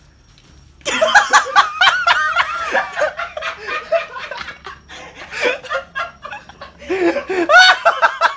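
Laughter breaks out about a second in, trails off, then swells again near the end.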